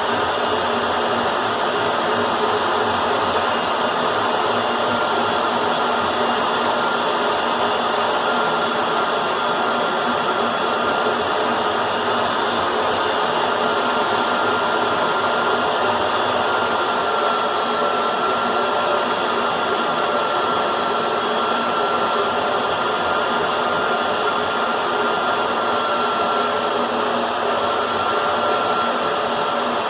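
Climax BB5000 portable line boring machine running a facing cut on the face of an excavator bucket ear: a steady, unbroken motor whine over even cutting noise.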